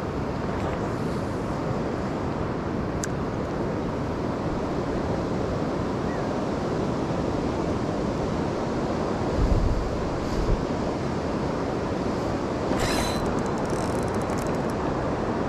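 Steady rush of flowing river water, with wind buffeting the microphone. A low thump comes about ten seconds in, and a short rattling hiss about thirteen seconds in.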